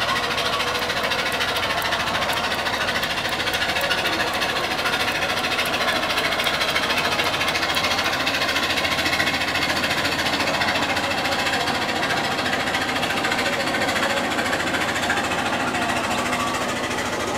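Steady, rapid mechanical clatter, like a small motor running.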